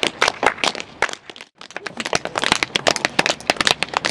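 Tap shoes striking plywood tap boards in fast, irregular runs of sharp taps, broken by a short silence about a second and a half in.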